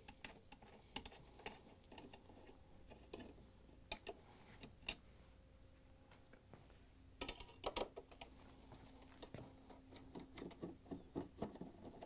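Faint, scattered clicks and ticks of a nut driver and small screws being handled on a metal dishwasher door panel, with a short cluster of sharper ticks about seven seconds in and more light ticking near the end.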